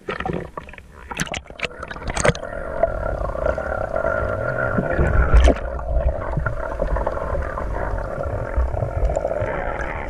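Splashing and knocks as the action camera plunges below the surface, then muffled underwater sound heard through the camera's waterproof housing: a steady hum with a low rumble beneath it.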